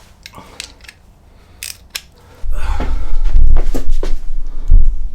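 Hand tools clinking: metal sockets and extension bars knocked together as they are swapped out, a few separate clicks. About two and a half seconds in, a loud low rumble with thumps sets in.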